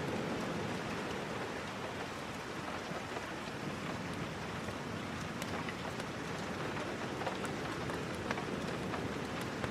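Steady rain falling, an even hiss with scattered sharp ticks.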